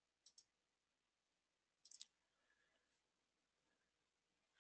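Near silence with a few faint computer mouse clicks: a pair just after the start and a quick cluster of two or three about two seconds in.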